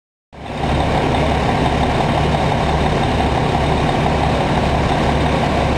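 Fire truck engine running steadily at the scene of a house fire, starting abruptly about a third of a second in.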